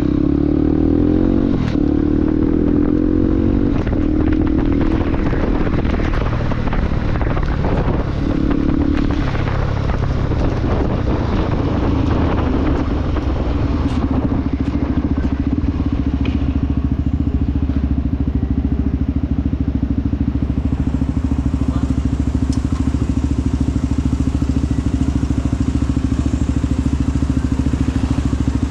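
Motorcycle engine running under way, its pitch stepping up and down as it revs and shifts through the first dozen seconds, then holding steady.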